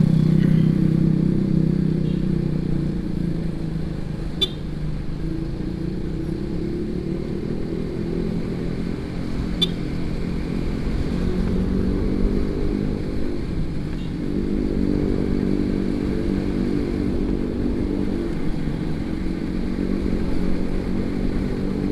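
Motorcycle engine running under the rider while cruising, its pitch rising and falling with the throttle, over steady wind and road noise. It is louder in the first few seconds, then eases off.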